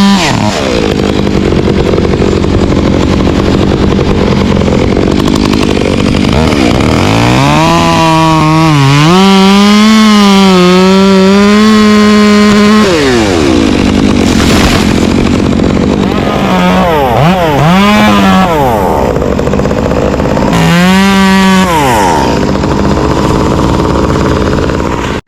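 Chainsaw engine revving up to full throttle in several long pulls, its pitch wavering and sagging under load as it cuts, and falling back to a lower, rougher running speed in between.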